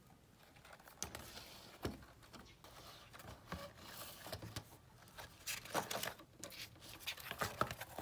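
Soft paper rustling and light taps as a spiral-bound notebook is handled and its cover opened, getting busier in the second half.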